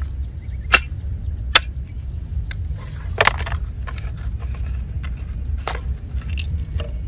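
Sharp clicks and crackles of a thin plastic drink bottle being handled and cut with a cleaver, about seven scattered through, the two loudest about a second and a half apart near the start, over a steady low rumble.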